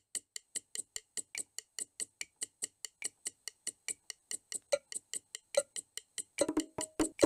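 A steady, clock-like ticking, about five ticks a second, left alone in a break in the song. A few faint pitched notes come in over the ticking near the end.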